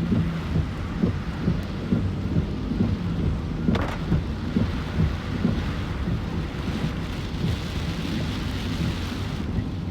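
Typhoon rain falling steadily, with gusts of wind buffeting the microphone in an irregular low rumble. A short sharp knock comes about four seconds in.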